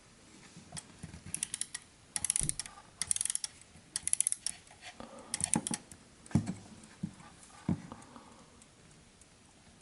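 Ratchet clicking from a 1968 Jaz Vinic mechanical alarm clock as it is wound by hand: about five short runs of rapid clicks, then a couple of single knocks.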